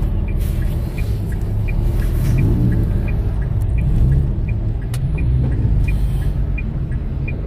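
Car cabin in slow traffic: steady low engine and road rumble, with the turn-signal indicator ticking evenly, about three clicks a second in an alternating tick-tock. One sharper click sounds about five seconds in.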